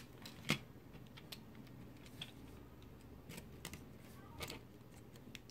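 Scattered light clicks and taps of plastic and thin sheet metal as a car radio's LCD holder is worked loose by hand. The sharpest click is right at the start, with another about half a second in, then a few faint ticks.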